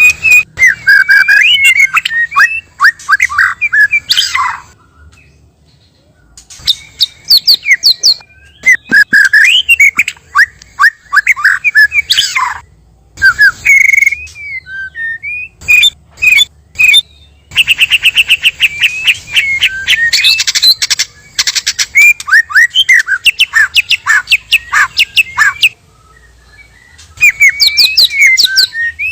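White-rumped shama (murai batu) singing: loud, rapid runs of varied whistles and quick chipping notes, delivered in bursts with brief pauses between phrases.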